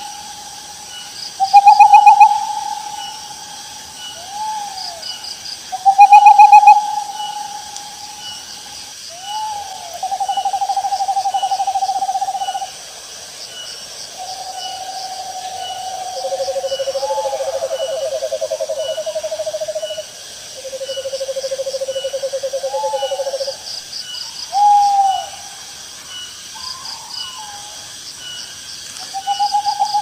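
Owl calling again and again. There are short hooting notes that rise and fall, with the loudest near the start. Several long, wavering notes are held for two to three seconds at different pitches in the middle.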